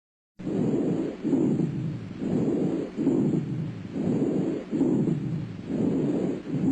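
Lung sounds heard through a stethoscope: noisy breath sounds starting about half a second in, then swelling and fading in quick, even cycles a little under a second apart.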